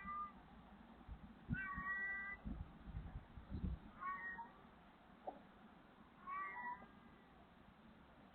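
A stray cat meowing repeatedly through a CCTV camera's microphone: the end of one call, then three more high meows about two seconds apart, with a few dull low thumps among the first two. The person who feeds the cat wonders whether it is crying from hunger, calling for its caretaker.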